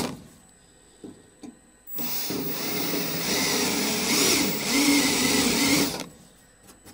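Cordless drill spinning a spot weld cutter into a steel pinch weld, a loud whirring cut of about four seconds that wavers in pitch as it bites, then stops. A couple of small clicks come before it starts.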